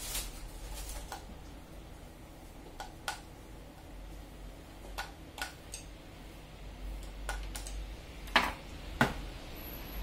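Screwdriver and plastic hair dryer housing clicking and knocking as the dryer is unscrewed and opened up, about a dozen scattered sharp clicks with the two loudest knocks near the end.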